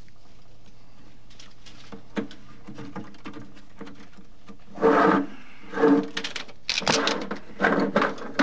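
Handling noises from a new refrigerator heat exchanger's tubing being worked through a drilled hole in the back of the cabinet. A few light clicks come first, then, about halfway in, several louder scrapes and rubs with a squeaky edge.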